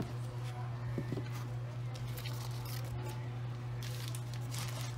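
Cardboard box packaging rustling and scraping as the phone is lifted out and handled, with a thicker rustle of handling shortly before the end. A steady low hum runs underneath.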